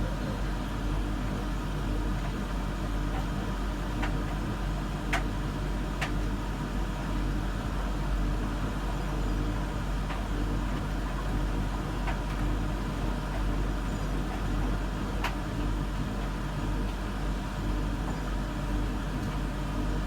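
Whirlpool Zen washing machine rinsing padded jackets: a steady low hum with several faint steady tones, and a few short sharp clicks now and then.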